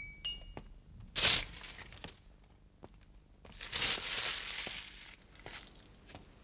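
Metal tube wind chimes ringing with a few clear tones that die away within the first second. Then a sudden loud rustling scrape about a second in, and a longer, softer rustling noise around four seconds in.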